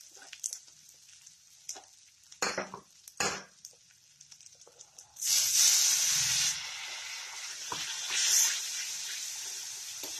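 Wet spice paste of ginger, turmeric, chilli and coriander powder sizzling in hot oil in a metal kadhai while a metal spatula scrapes and stirs it: the masala being roasted. A few short scrapes come first, then the sizzle rises suddenly to a loud hiss about five seconds in, settles to a steady sizzle and swells once more a few seconds later.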